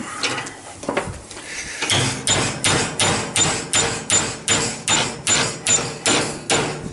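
A hammer striking a 10 mm steel rod clamped in a bench vise: a steady run of about thirteen blows, roughly three a second, each with a short metallic ring. Before them there is some irregular clatter of tools being handled.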